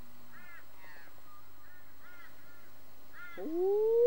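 Crows cawing faintly in short repeated calls. Near the end a rising wail starts up and settles into a loud, steady held tone: a hand-held howling call used to imitate a wild dog's howl and draw dogs in.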